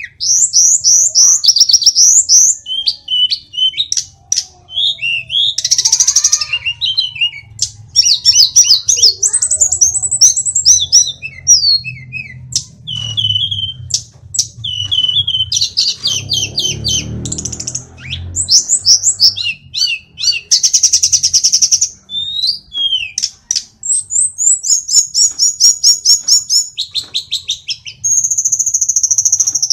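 Hill blue flycatcher singing a long, loud, varied song of rapid high whistled notes, sweeping slurs and buzzy trills, delivered in quick phrases with barely a pause.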